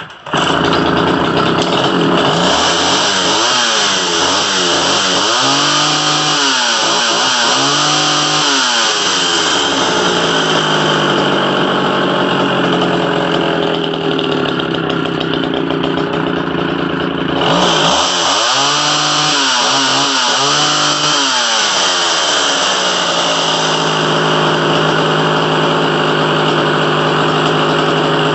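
John Deere 55V two-stroke chainsaw running, revved up and down several times in two spells, about five and about eighteen seconds in, and running steadily in between and near the end. The owner reckons it may need carburetor tuning.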